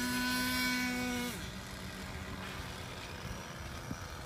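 Small glow-fuel model airplane engine (O.S. .46) held at high revs with a steady high-pitched buzz, then a little over a second in dropping in pitch and fading to a faint drone as the plane is hand-launched and flies away.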